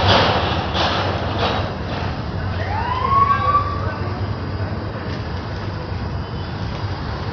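A coach bus's engine running with a steady low rumble as the bus pulls out. A few short hissing bursts come in the first second and a half, and a single rising tone that then holds comes about three seconds in.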